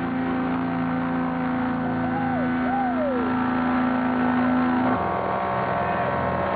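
Microlight trike engine running steadily with a strong even drone while the aircraft taxis over a rough dirt strip; about five seconds in the engine note shifts. Two brief rising-and-falling tones sound over it about two and three seconds in.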